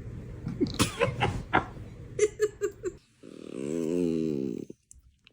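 A voiced yawn: one drawn-out, slightly wavering 'aah' lasting about a second and a half, just past the middle. It is preceded by a run of short mouth clicks and small squeaks.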